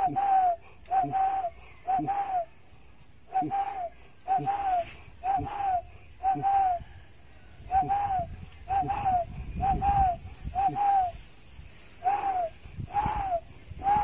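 Spotted dove cooing over and over: short arched coos that rise and fall, in twos and threes about a second apart.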